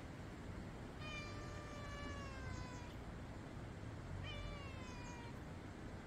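A cat meowing twice: a long meow that slides slowly down in pitch, then a shorter falling meow just over a second later.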